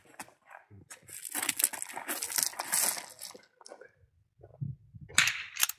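Gravel crunching and gear rustling as a shooter drops to one knee and settles a rifle onto a large tractor tyre, with a dense stretch of scraping from about a second in that lasts about two seconds. A short sharp crack comes near the end.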